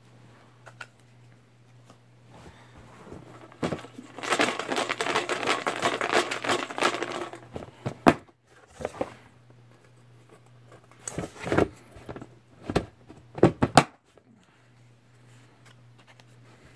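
Paper crinkling and rustling for about four seconds, then a handful of light taps and clicks.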